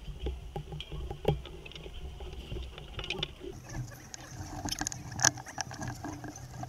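Rustling and scattered light clicks close to the microphone as the seat harness is fastened and tightened around a driver in a racing-car cockpit.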